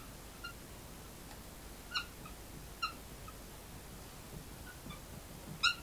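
Dry-erase marker squeaking on a whiteboard while writing: a series of short, high squeaks, the loudest about two seconds in, just before three seconds in and near the end.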